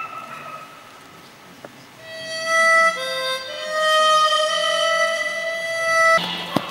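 A wind instrument playing long held notes and chords, starting about two seconds in and changing notes a couple of times, with a brief rush of noise near the end.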